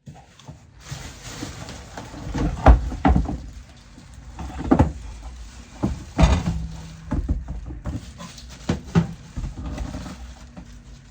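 Irregular knocks, thumps and rustles of an air fryer's box and packaging being handled and opened, with the loudest thumps about three and six seconds in.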